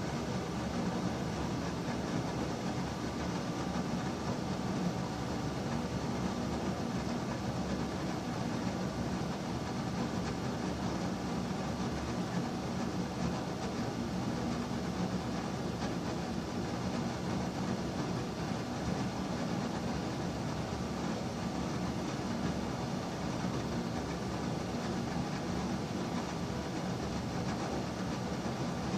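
Electric bathroom exhaust fan running steadily, a constant low whooshing drone with a faint hum.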